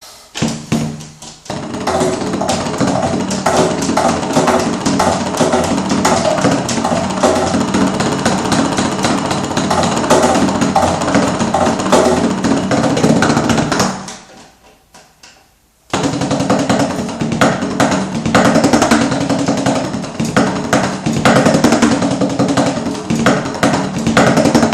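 A drum kit playing a groove with music. The sound dies away about fourteen seconds in and comes back in sharply about two seconds later.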